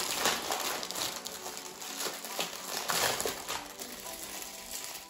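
Plastic snack packaging crinkling and rustling as a hand rummages in a bag and draws out an individually wrapped cake.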